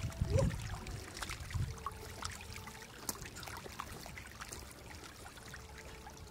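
Small splashes and trickling of shallow muddy water as hands grope in it to grab stranded catfish, with a few louder low bumps in the first two seconds.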